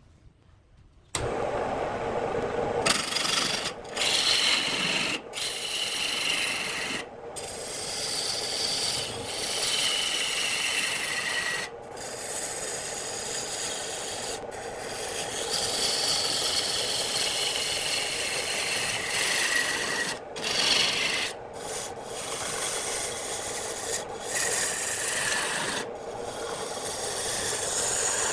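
Wood lathe with a turning tool cutting into the spinning wood: a continuous scraping that starts about a second in, with several short breaks as the tool comes off the work.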